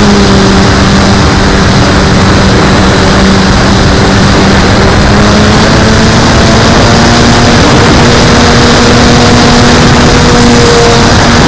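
Tundra RC plane's propeller and motor running in flight, heard from a camera mounted on the plane. A steady hum is heard over heavy wind rush on the microphone. The pitch dips at the start, rises about six seconds in and drops again near the end as the throttle changes.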